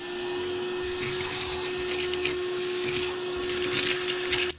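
Vacuum cleaner running with a steady whine over a rushing noise, with scattered crackles as it sucks up debris from the bilge. It cuts off suddenly near the end.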